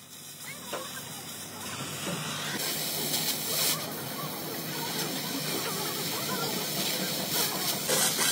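Oxy-fuel gas cutting torch hissing steadily against a steel truck frame rail. The hiss builds over the first couple of seconds, then runs steady and louder.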